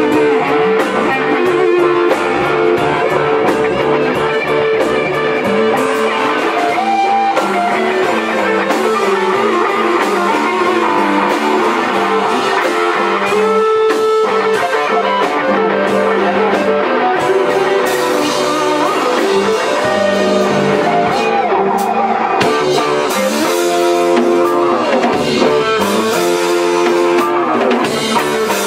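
Rock band playing live: two amplified electric guitars over a Tama drum kit, loud and continuous.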